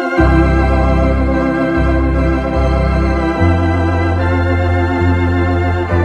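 Two-manual home console organ played with both hands: sustained chords held over a bass line that moves to a new note every second or so.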